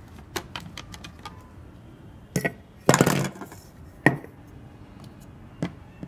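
Hard plastic parts of a Total TVCH14111 cordless vacuum's dust cup and filter clicking and knocking against each other and the table as they are handled. Scattered light clicks come throughout, with a louder cluster of knocks about three seconds in and another sharp knock a second later.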